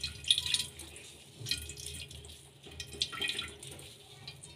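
Whey splashing and trickling into a steel pot as a cloth bundle of fresh chhena is wrung out by hand, coming in a few stronger spurts with each squeeze.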